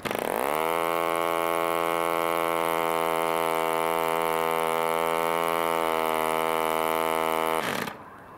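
1947 HP Series I 3.5cc spark-ignition model aero engine, a single-cylinder two-stroke, firing up on a flick of the propeller and picking up speed within half a second, then running steadily. About a second before the end it cuts out and winds down with quickly falling pitch as the ignition is switched off.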